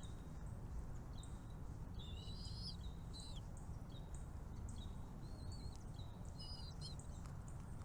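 Small birds chirping: short high chirps about once or twice a second, with two busier twittering passages, one about two seconds in and one near the end, over a steady low rumble.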